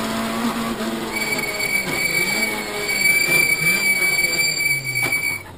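Rally car engine heard from inside the cockpit, its pitch rising and falling, with a steady high-pitched squeal over it from about a second in. Both cut off suddenly near the end.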